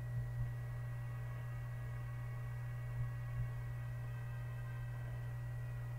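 Steady low electrical hum, with faint soft double thumps near the start and again about three seconds in.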